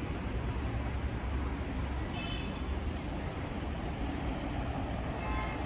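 Road traffic at a wide city intersection: cars, scooters and a city bus going by, a steady wash of engine and tyre noise with a deep rumble underneath.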